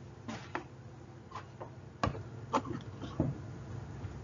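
Room noise: a few faint, scattered clicks and knocks over a steady low hum.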